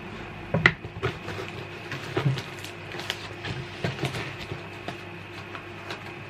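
Handling noises from the boxed flat-pack plant stand and its parts: a few scattered knocks and clicks, the loudest about two-thirds of a second in, over a faint steady hum.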